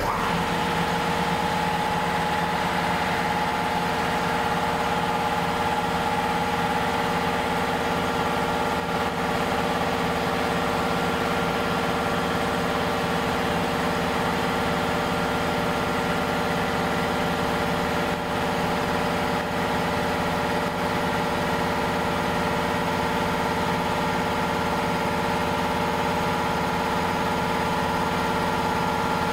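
Walter GK 880-5.5/500 P piston air compressor switched on at its pressure switch and running steadily as it pumps up its tank, an even mechanical hum with a constant pitch.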